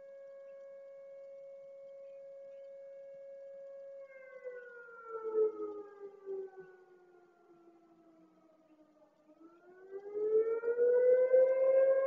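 Fire station siren sounding the fire alarm: a steady tone that slowly falls in pitch from about four seconds in, then rises back and grows louder near the end. A few brief irregular lower sounds come through midway.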